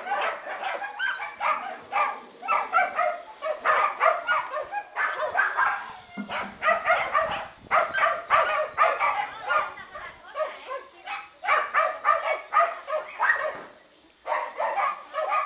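Black shepherd puppy yapping and yipping in play, in rapid runs of short high barks, with a short lull near the end.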